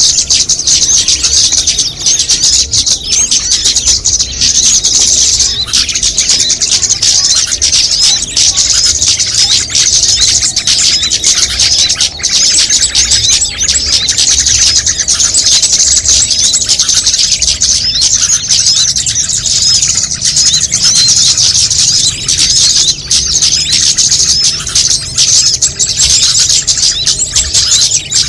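Bird-lure recording of many small songbirds calling at once, a dense, continuous, loud high-pitched chattering of chirps and trills.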